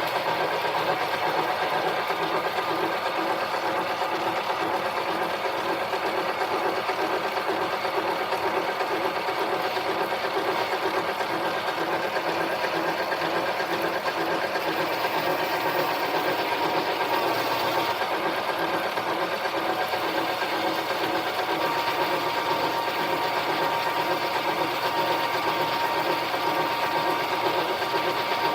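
Harbor Freight mini lathe running steadily under power during a turning job: a constant mechanical hum with a steady whine that grows a little stronger about three-quarters of the way through.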